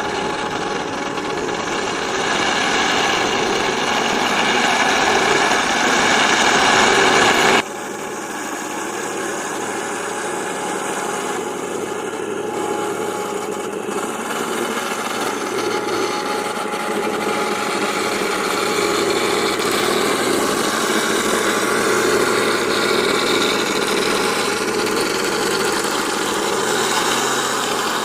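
MATO 1/16 all-metal Tiger I RC tank running with its simulated engine sound, a steady mechanical rumble. About seven and a half seconds in, the sound changes abruptly and the deep bass drops away.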